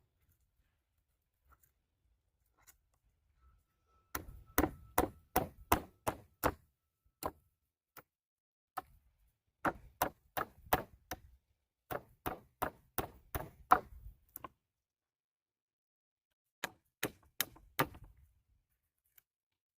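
Hammer blows in quick runs of several strikes, about three a second, with short pauses between the runs.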